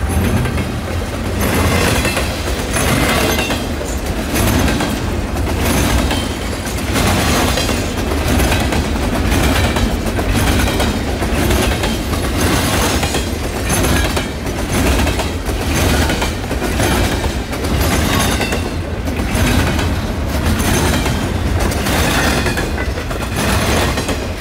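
Double-stack intermodal freight cars rolling past at close range. A steady rumble of steel wheels on rail is broken by regular clickety-clack as the wheelsets cross the track.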